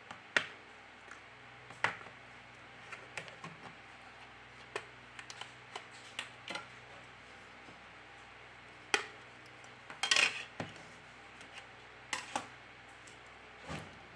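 Light, irregular clicks and taps of small tools and plastic and metal parts being handled as a smartphone is taken apart, with a short clattering cluster about two-thirds of the way through.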